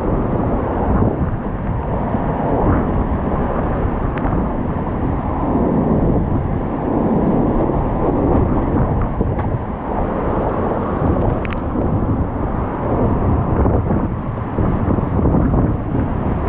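Hurricane-force wind in Hurricane Ida's eyewall blowing hard and buffeting the microphone, surging and easing in gusts.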